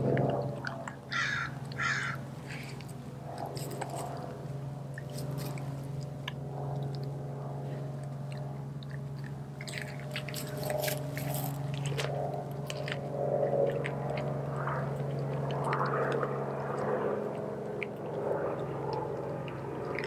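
Doberman chewing and tearing at a whole raw chicken with its feathers on, giving irregular wet crunches and clicks, over a steady low hum.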